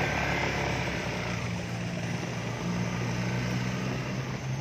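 Small motor scooter engine running steadily at low speed, a continuous low hum.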